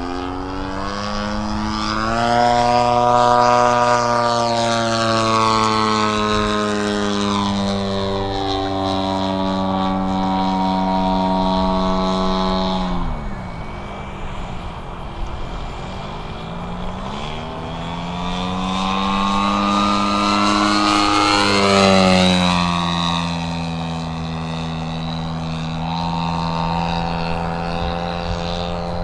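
The DLE-100 twin-cylinder 100cc gas engine of a large-scale RC Super Decathlon running in flight, its propeller drone rising and falling in pitch as the plane is throttled up and back through its manoeuvres: climbing about two seconds in, dropping around eight and thirteen seconds, climbing again around eighteen seconds and dropping near twenty-two.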